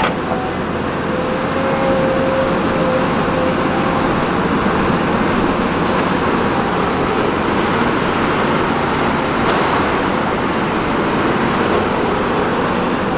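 Steady diesel engine noise of heavy earthmoving machinery, excavators and dump trucks working together.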